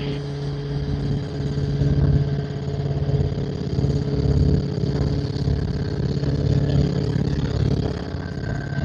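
Helicopter engine and rotor running at flight power during a gentle lift-off into a hover: a steady hum with a low, uneven beating beneath it.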